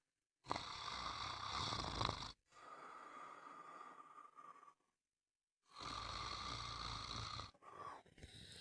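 A person snoring: two snores about five seconds apart, each lasting about two seconds, each followed by a quieter stretch of breathing.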